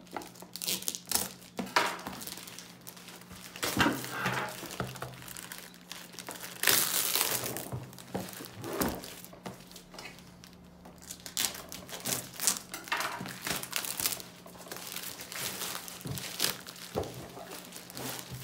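Thin plastic mailer bag crinkling and tearing in irregular bursts as it is ripped open and pulled off a cardboard box, with the loudest rips about four and seven seconds in.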